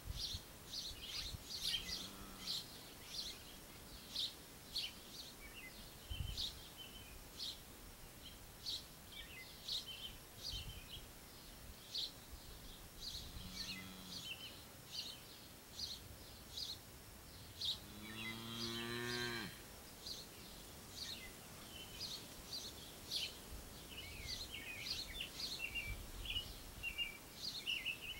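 Songbirds chirping over and over, with a farm animal giving low calls: two short ones, then a longer, louder call about two-thirds of the way through.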